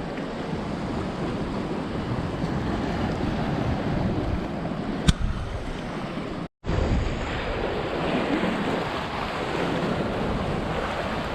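Surf washing against a rock jetty with wind buffeting the microphone, a steady rushing noise. A single sharp click about five seconds in, and the sound drops out for an instant just after the middle.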